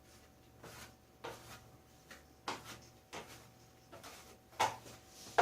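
An open hand spreading thick insulating coating over a wall: a string of short, irregular swipes and light taps, about two a second, over a faint steady hum.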